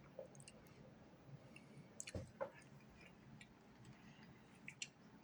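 Near silence with faint clicks and small mouth sounds of someone eating soup, with a couple of slightly louder clicks about two seconds in.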